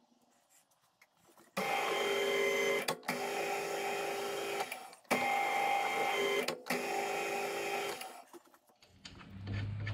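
Metal lathe running with a steady gear whine, starting about a second and a half in, stopping briefly three times and starting again, then shutting off near the end, as the spindle drives a tap through a quarter BSP thread in a small steel fitting.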